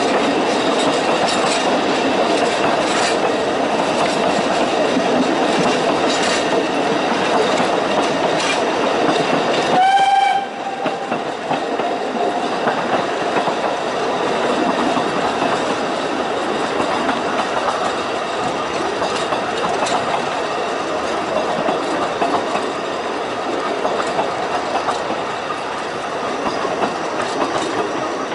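Narrow-gauge steam train running, heard from an open carriage window: a steady rumble with wheels clicking over the rail joints. The locomotive's whistle sounds once, briefly, about ten seconds in.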